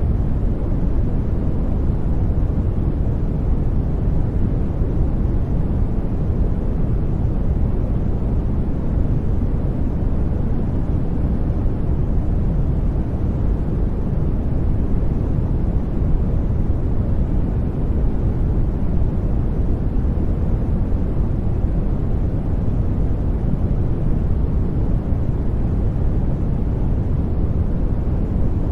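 Steady, unchanging generated noise of the sleep-sound kind, with its strength mostly in the low end, so it sounds like a deep, even rumble rather than a bright hiss.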